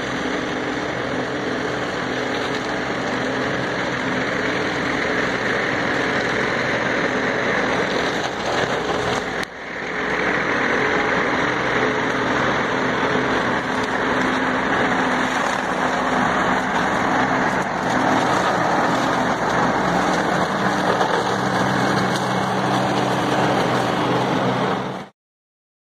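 New Holland 7630 tractor's diesel engine running steadily under load while its articulated-arm mower cuts grass and brush on a roadside bank, a dense mowing noise over the engine hum. The sound dips briefly about a third of the way through and stops abruptly near the end.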